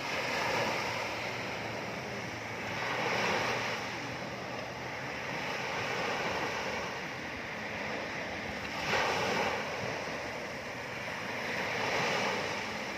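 Ocean waves breaking, a steady wash of surf that swells about every three seconds, with a sharper break about nine seconds in.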